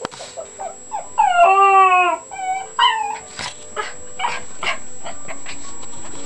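A puppy whining: a few short whiny cries, then one long drawn-out cry about a second in that sinks slightly in pitch, more short cries, then several breathy, noisy bursts.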